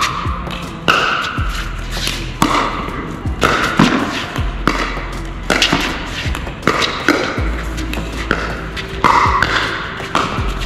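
Pickleball rally: paddles striking a plastic pickleball back and forth, sharp pops at uneven intervals about once a second, with background music underneath.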